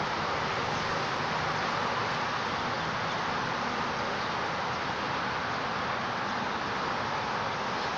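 Steady, even background rushing noise with no distinct events.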